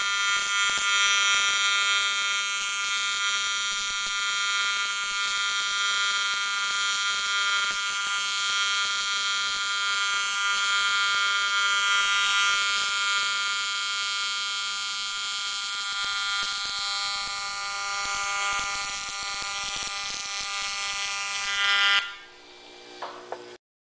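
AC square-wave TIG welding arc on aluminium: a steady electric buzz with a hiss over it. The arc stops about two seconds before the end.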